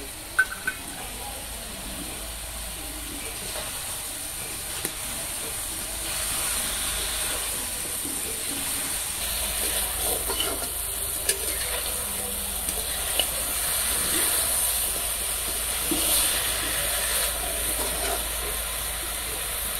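Chicken pieces sizzling in a black iron wok over a wood fire, with a steady hiss, as a spatula stirs and scrapes them. Sharp clicks of utensil on pan come twice near the start and a few more times later.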